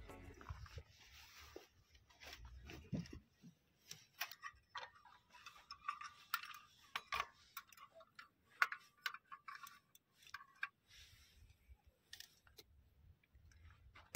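Irregular metal clicks and light rattles from a portable folding butane camping stove being handled, its hinged pot-support arms swung out and snapped into place.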